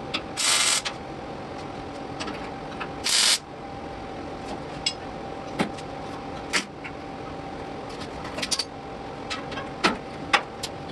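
Welder laying two short tack welds on old steel body panel, each a crackling hiss lasting about half a second, one about half a second in and one about three seconds in. Scattered light clicks and ticks from the metal follow, over a faint steady hum.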